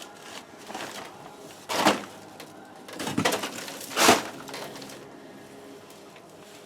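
Drywall being broken away around the edges of a hole in a ceiling: three short, sharp noises about two, three and four seconds in.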